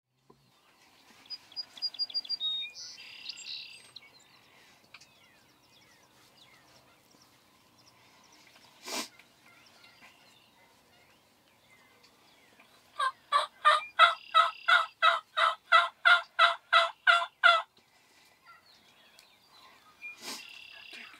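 Wild turkeys calling: a long run of about fifteen loud, evenly spaced yelps, about three a second, in the middle, with shorter calls near the start and near the end.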